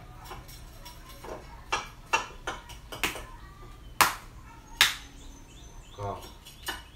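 A string of sharp slaps and taps, about six of them, as small frogs are handled out of a mesh net bag over plastic basins; the loudest comes about four seconds in.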